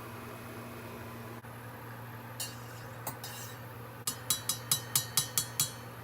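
A quick run of about eight sharp metallic clinks, four to five a second, after a few scattered light clinks, over a steady low hum.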